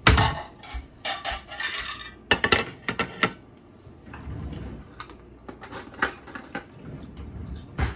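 Ceramic dishes and metal cutlery clinking and clattering in a run of short, irregular knocks, as a plate is set down by the stove. The loudest knock comes right at the start.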